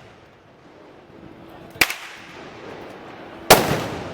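Two sharp gunpowder blasts about two seconds apart, the second louder and trailing off in an echo.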